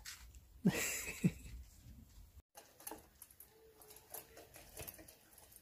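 A couple of knocks and rustling, then faint quick clicking and ticking as two puppies eat from stainless steel bowls.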